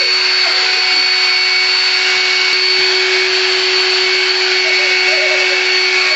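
An electric motor running steadily, a constant hum and high whine over rushing air.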